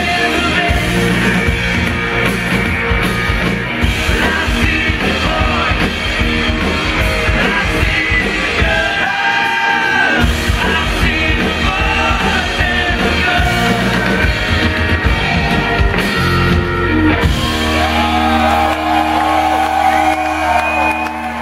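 Live rock band playing: electric guitars, drums and keyboard with a lead singer. About seventeen seconds in the drums stop and the band holds a sustained chord under the singing.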